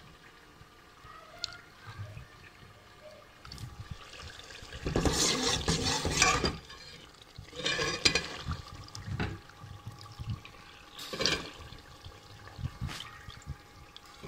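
Water sloshing and splashing around vegetables in a steel cooking pot, in several irregular bursts. The longest lasts about a second and a half, about five seconds in.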